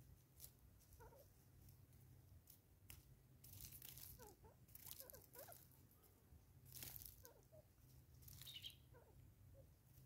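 Faint outdoor ambience: soft rustling and crackling noises coming and going, a little louder about four, five, seven and eight and a half seconds in, with a few faint bird chirps.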